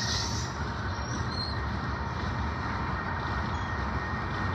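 Freight train of covered hopper cars rolling past close by, with a steady, continuous rumble of steel wheels on the rails.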